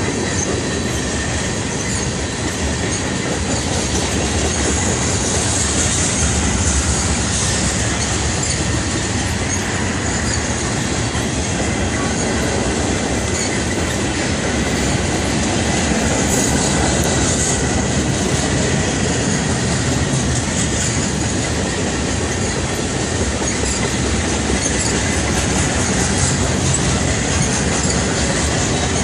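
Freight train cars, tank cars and boxcars, rolling steadily past: a continuous rumble and clatter of steel wheels on the rails. A thin, steady, high wheel squeal runs over it.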